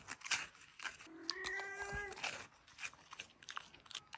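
Siberian husky giving one drawn-out, steady whine lasting about a second, a little over a second in, with short clicks scattered around it.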